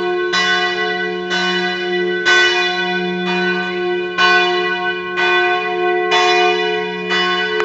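Large church bell struck about once a second, each stroke ringing on over a steady deep hum from the bell's lower tones.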